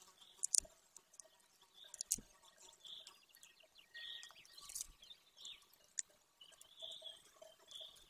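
A few sharp clicks and snaps from a golden eaglet tearing at prey on its stick nest, the loudest about half a second in and another about two seconds in. Behind them, faint repeated high chirps of small birds.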